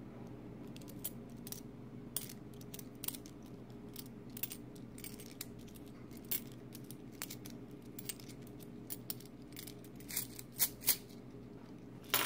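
Silver dimes being handled, with light, irregular clicks and clinks throughout and two sharper clinks near the end. Right at the close, a louder clatter begins as a handful of dimes spills onto the table.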